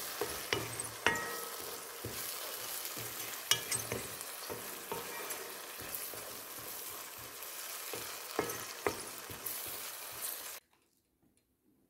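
Diced onion and fresh tomato sizzling in oil in a nonstick frying pan, stirred with a wooden spoon that clicks and scrapes against the pan now and then. The sound cuts off abruptly near the end.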